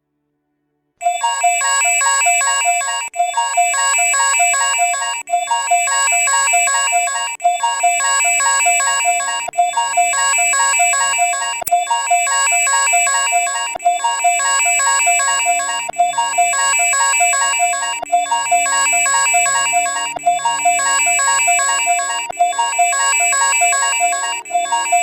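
Emergency alert system alarm tone: a loud, pitched electronic warbling tone that starts about a second in and repeats in cycles of roughly two seconds, with a faint low hum underneath.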